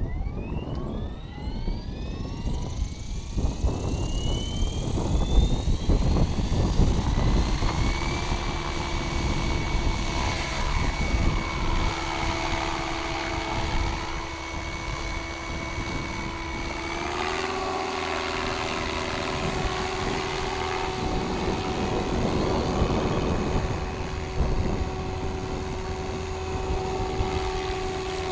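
SAB Goblin 500 electric RC helicopter spooling up, its motor and rotor whine rising in pitch over about eight seconds, then holding a steady pitch as it flies. The pitch steps up slightly a little past the middle.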